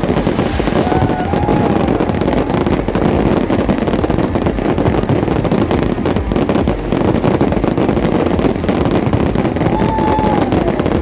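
Fireworks display: a dense, continuous barrage of crackling and popping, with a brief whistling tone that rises and falls about a second in and again near the end.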